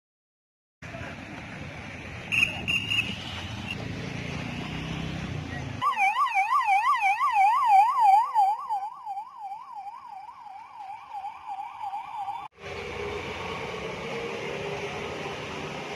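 Emergency vehicle siren yelping, its pitch swinging rapidly up and down about three times a second for several seconds. Before and after it there is steady background noise, with a low rumble like vehicles.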